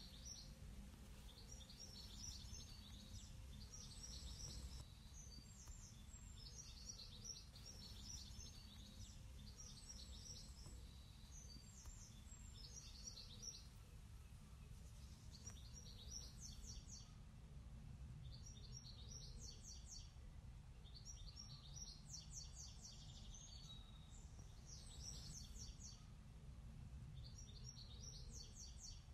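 Faint songbird song: short, high chirping phrases repeating every second or so, with a brief lull about halfway through, over a steady low rumble of outdoor background noise.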